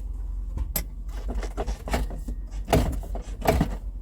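A portable fridge being shoved and settled into its cabinet space: scraping and handling noise with a few sharp knocks, the loudest two near the end, over a steady low hum.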